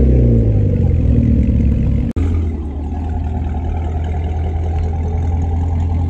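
Car engines revving and rising and falling in pitch as cars pull out past. About two seconds in, after an abrupt break, a Chevrolet Camaro's engine idles steadily with a low, even rumble from its quad-tip exhaust.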